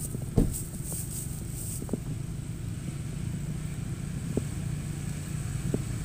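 Off-road 4x4 SUV engine running at low speed as it crawls along a dirt track, a steady low drone. A short thump about half a second in stands out above it.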